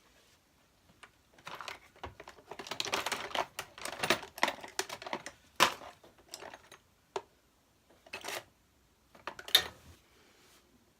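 Hands working with small hard parts at a bench: bursts of clicking, tapping and rattling with a few sharper clicks, starting about a second and a half in and dying away near the end.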